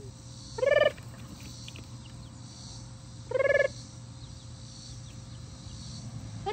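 Young chickens calling: two loud, short calls about three seconds apart, over faint scattered cheeping.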